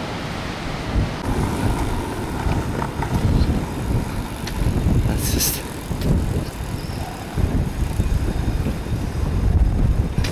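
Wind buffeting the camera's microphone, a gusty low rumble, with a short sharp hiss about five seconds in.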